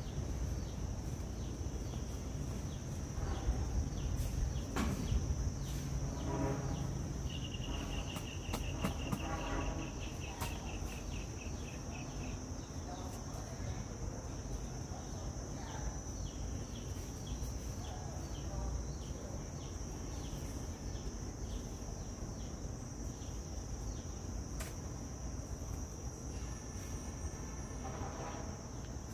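A steady high-pitched insect trill, like crickets, runs on over a low background rumble. About seven seconds in, a rapid run of short chirps lasts some five seconds, and sharp clicks sound now and then.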